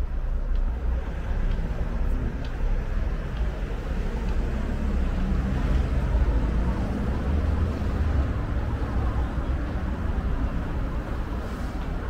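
City street background: a steady low rumble of traffic that swells about six to eight seconds in, with a few faint ticks.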